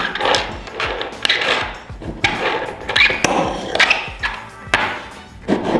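Wooden fingerboard doing tricks on a tabletop parking-block obstacle: a series of sharp, irregular clacks as the board pops, lands and hits the block, with short stretches of small wheels rolling in between.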